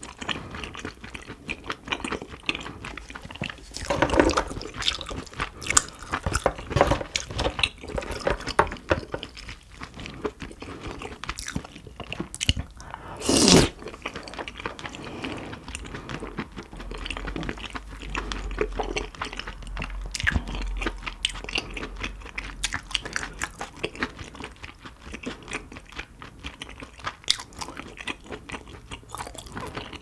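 Close-miked eating of crab: crab shell crunching and cracking and the meat being chewed, in a dense run of small sharp cracks, with one louder crack about halfway through.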